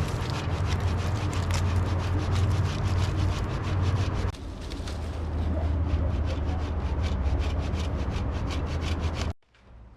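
Hand saw cutting firewood in quick, even strokes over a steady low hum. The sound cuts off abruptly near the end.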